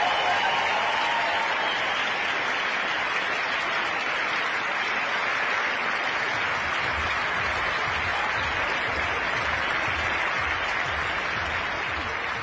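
Large theatre audience applauding, a dense, steady sound of many hands clapping at once; from about halfway a low, regular thudding joins in under the clapping.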